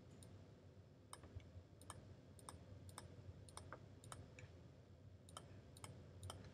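Faint computer mouse clicks at an irregular pace, about two to three a second and some in quick pairs, as grease-pencil dots are placed one at a time.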